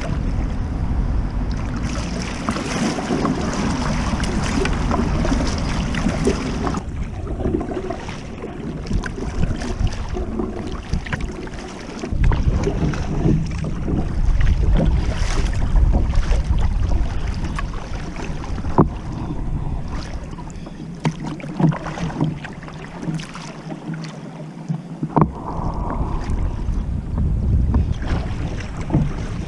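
Wind buffeting the microphone and water lapping and splashing against a moving kayak's hull, with scattered short knocks. The wind rumble eases for a few seconds past the middle, then returns.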